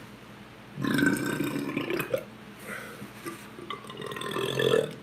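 A man belching loudly: a long burp about a second in, a shorter one after it, and another long burp that builds near the end, brought up while eating a large amount of pizza.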